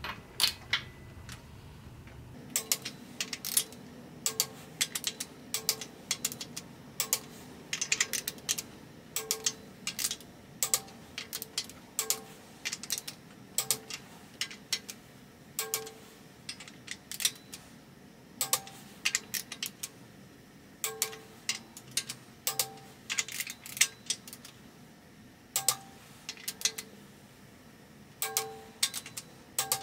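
Click-type torque wrench clicking again and again on the cylinder head bolts of a Ford 172 diesel engine, as each bolt is rechecked at 100 foot-pounds and found already at torque. The clicks are short and sharp, some with a brief ring, often in quick pairs or small clusters.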